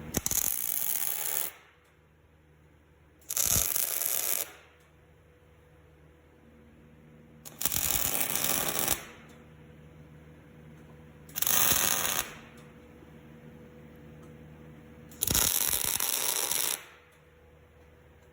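Electric arc welder laying tack welds on steel: five short bursts of arc crackle, each a second or so long and a few seconds apart, with a faint steady hum between them.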